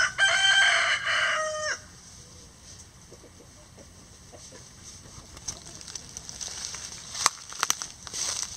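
A rooster crows once, loud and high-pitched, the crow lasting nearly two seconds. Soft low clucks follow, then sharp crackles of dry leaves and pine needles as the chickens forage.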